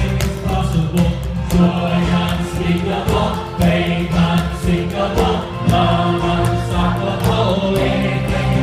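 A choir singing a gospel song over a band, with plastic bucket and barrel drums beaten in a steady rhythm.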